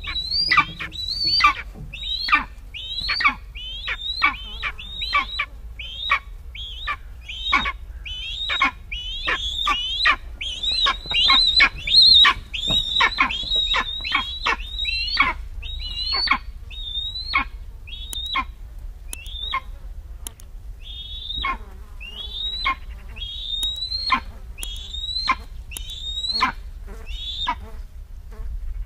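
Eastern imperial eagle calling: a long series of short, high calls, about one or two a second, each falling sharply in pitch, with a few brief gaps.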